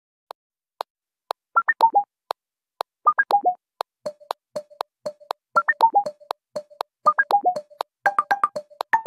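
Background music: an electronic track of short, plucked synthesizer notes falling in quick runs over a steady ticking beat, with only a few ticks for the first second or so.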